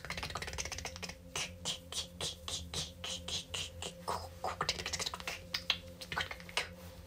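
Rapid, irregular clicking, several sharp clicks a second, over a faint steady hum.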